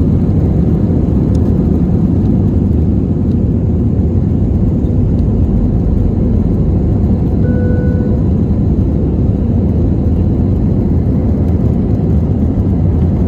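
Steady, loud low rumble of a vehicle heard from inside its cabin, with no change in pitch or level, and a faint brief tone about seven seconds in.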